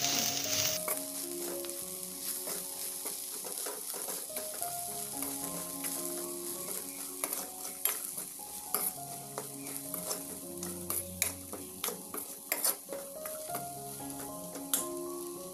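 A metal spatula stirring a moist banana blossom and grated coconut stir-fry in a steel pan. It makes irregular scraping and clicking against the pan over a light sizzle.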